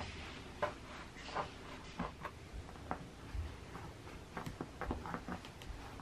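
Hands smoothing and stretching a wet felted wool cardigan on foam floor mats: soft, irregular rustles and small taps.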